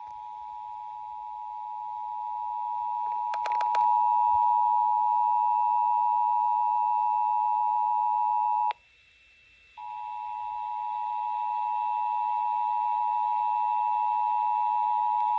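Emergency Alert System two-tone attention signal relayed over an FM radio broadcast, announcing a severe thunderstorm warning. It is a steady dual tone that grows louder over the first few seconds, with a few brief clicks around three and a half seconds in. Past the middle it drops out for about a second, then resumes.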